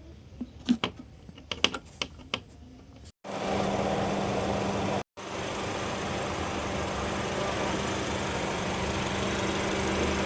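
A few sharp clicks and knocks, then a car engine running steadily with its air-conditioning compressor, a constant low hum, broken by a brief cut a couple of seconds in.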